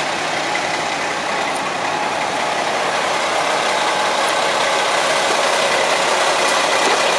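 Concrete mixer truck's diesel engine running steadily at idle, slowly growing a little louder.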